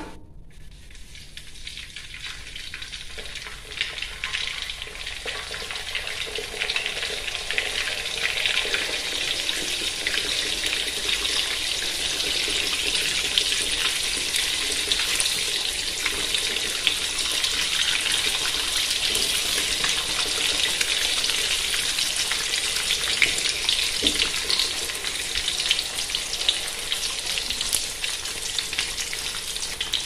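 Eggs frying in oil in an aluminium wok, a sizzle with frequent small crackles. It builds over the first several seconds as the relit wok comes back up to heat, then holds steady.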